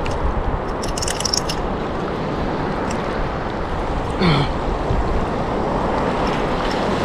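Steady wash of surf and wind on the microphone around a wader standing waist-deep in choppy water. A few quick clicks come about a second in, and a brief falling voice-like sound about four seconds in.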